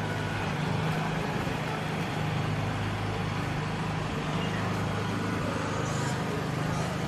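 Outdoor street ambience: a steady low hum under a haze of background noise, with faint voices of passers-by.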